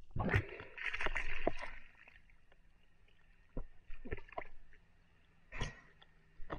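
Water splashing and sloshing against a waterproof action-camera housing as a diver breaks the surface, then a few short, dull knocks from handling.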